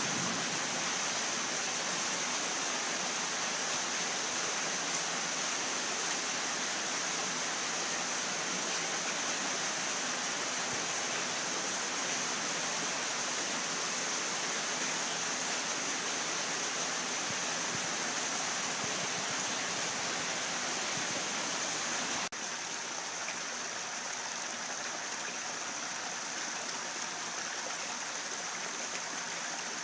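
Steady rushing of running water, even and unbroken, dropping slightly in level about 22 seconds in.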